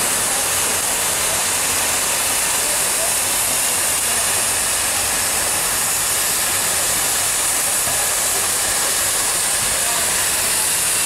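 Idling, fired-up DM&IR 332 steam locomotive hissing steadily as steam escapes.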